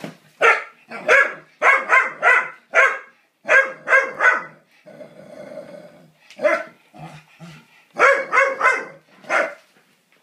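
A dog barking at a crawfish: some fifteen short, sharp barks in quick runs, with a break about five seconds in.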